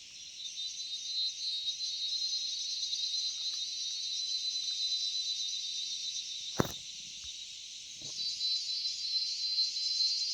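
Forest crickets and other insects calling in a dense, high-pitched chorus that swells about half a second in, eases a little, then swells again near the end. A single sharp click about two-thirds of the way through.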